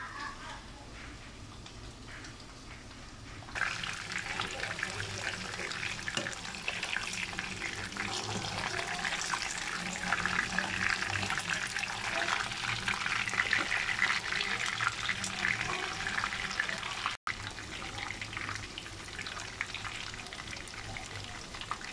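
Battered pork chops frying in a pan of bubbling oil: a dense sizzle of fine crackles and pops that sets in suddenly a few seconds in, after a quieter start, and cuts out for an instant near the end.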